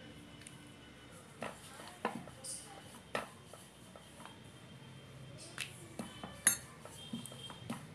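Wooden rolling pin rolling out dough on a stone rolling board, with scattered sharp clicks and knocks as the pin and hands meet the stone; the loudest knock comes late.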